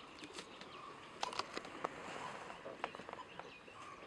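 A few sharp clicks or taps, bunched together about a second in and again briefly near three seconds, over a faint steady outdoor hiss.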